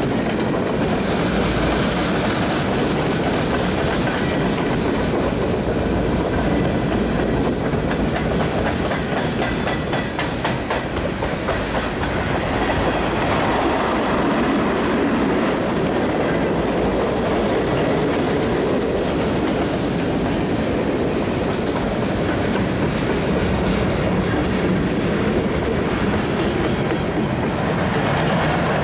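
A freight train's cars rolling past close by: boxcars, a tank car and bulkhead flatcars, with a steady rumble and the clatter of steel wheels over the rails.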